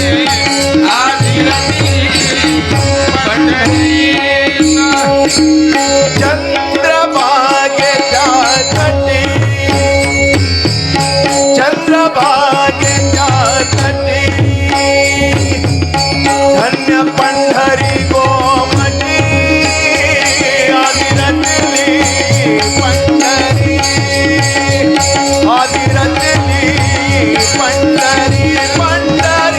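Devotional Marathi abhang music: a fast hand-drum rhythm under a sustained drone and melody, with bright cymbal-like shimmer on top.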